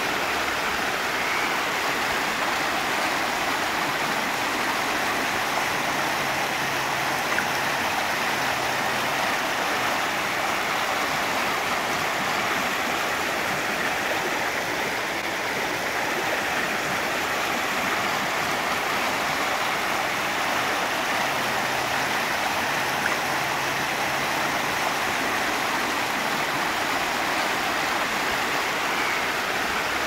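Shallow mountain stream rushing and babbling over boulders in small rapids, a steady, even water sound. About halfway through, the recording turns and plays in reverse.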